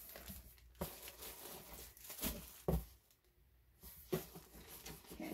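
Packaging in an opened parcel rustling and crinkling as it is handled, with a few sharp crackles and a brief quiet spell just past the middle.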